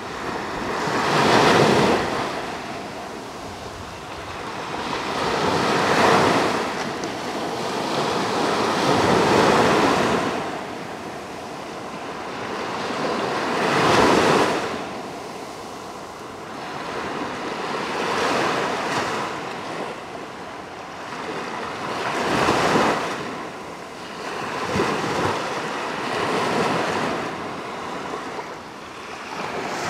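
Black Sea surf breaking on a sandy beach, a wave swelling in and washing up the shore about every four seconds.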